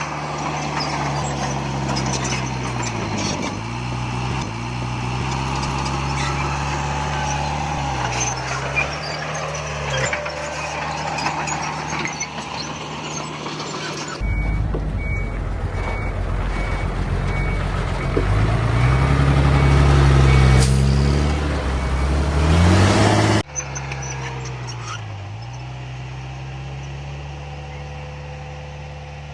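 Heavy diesel earthmoving machinery running under load, the engine note dipping and recovering as it works. In the middle stretch a reversing alarm beeps steadily while the engine revs up hard.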